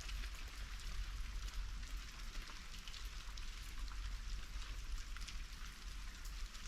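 Steady fine patter of many tiny ticks and crackles, like rain falling on a surface, over a low rumble.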